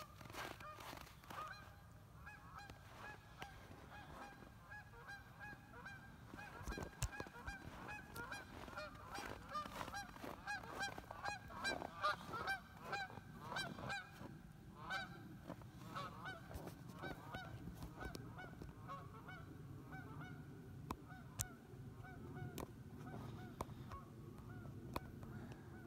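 A flock of geese honking, many overlapping calls, thickest and loudest around the middle and thinning out toward the end.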